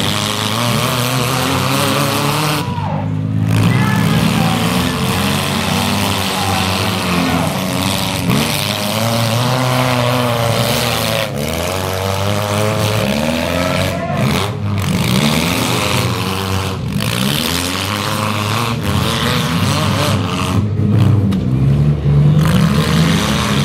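Several demolition derby car engines revving at once, their pitch rising and falling again and again as the cars accelerate and back off.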